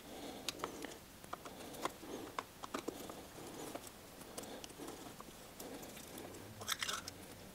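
Faint, scattered small clicks and scrapes of a screwdriver working the screws of a twin-SU carburettor's float chamber lid, with a brief cluster of clicks near the end as the lid is handled.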